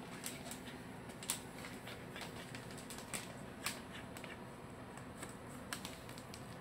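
Shetland sheepdog nibbling and chewing a sweet potato stick treat straight from a hand-held packet: irregular sharp clicks of teeth and chewing, four of them louder.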